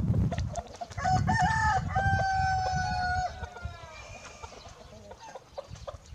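A Pavlovsky rooster crows once, starting about a second in: a crow of about two seconds ending in a long drawn-out note. Quieter clucking from the flock follows.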